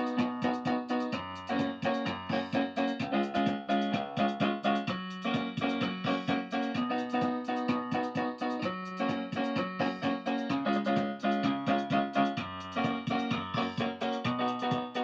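Electronic keyboard music: fast, evenly repeated notes and chords over a held low bass line.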